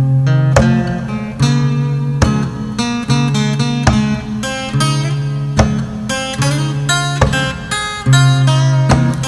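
Background music: an instrumental passage with strummed guitar over a low bass line and a steady drum beat.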